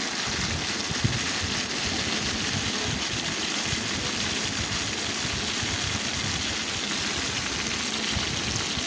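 Hot oil sizzling steadily in a steel kadai as sliced brinjal (eggplant) pieces fry in it.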